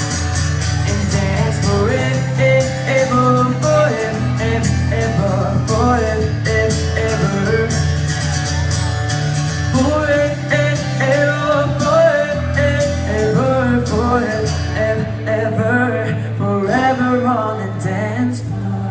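Live pop music over a concert PA system: a steady drum beat and bass with a wavering melodic lead line.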